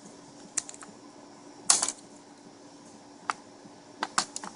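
Sharp plastic clicks and taps from handling a Logitech K400 wireless keyboard at its battery compartment: one click, a louder rattling cluster, another click, then three quick ones near the end.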